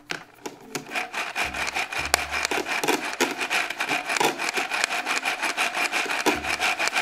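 Black+Decker toy hand mixer running with its plastic beaters in play dough: a steady, rapid rattling buzz of many small clicks a second, switched on about a second in.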